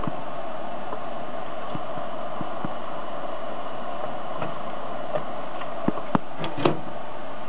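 A steady, even hum with light clicks and taps from wires and connectors being handled, the clicks coming more often near the end.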